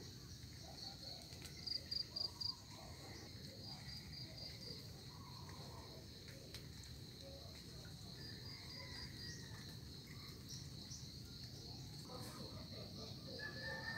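An insect chirping in short trains of rapid high-pitched pulses, four or five pulses to a train, with a few trains spaced seconds apart over a faint steady background hum.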